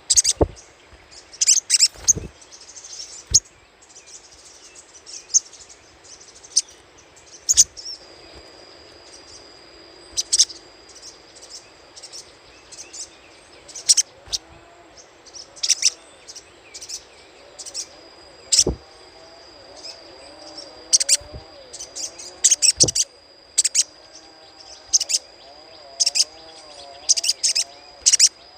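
Little spiderhunter (sogok ontong) giving its 'crecetan' chatter: sharp, high chirps, singly and in quick clusters at irregular intervals, of the kind played as a lure call. A steady high whine sounds through parts of it.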